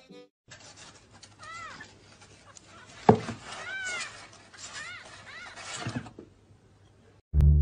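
Kitten mewing: several short, high mews that rise and fall, with a sharp knock about three seconds in.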